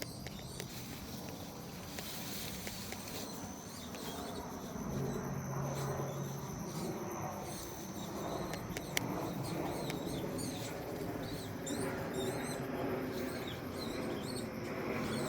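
An unidentified animal making repeated short, high squeaky calls, coming thickest in the last few seconds, over a steady high-pitched drone.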